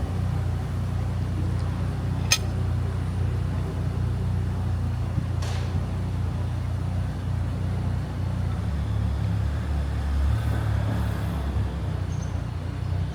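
Steady low rumble of outdoor town ambience, with a sharp click about two seconds in and a fainter one a few seconds later.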